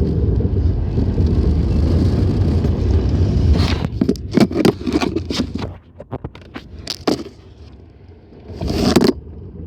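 Mercedes-Benz 190E driving, heard from inside the car as a steady low rumble. About three and a half seconds in comes a quick run of sharp scraping clatters, then the rumble drops away, and a loud scrape follows near the end.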